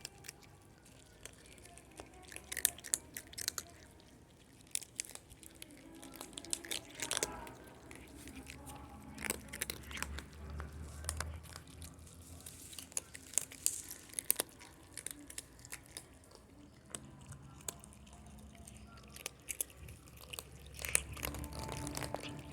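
Cats chewing dry kibble: irregular crisp crunches and clicks of biting and chewing.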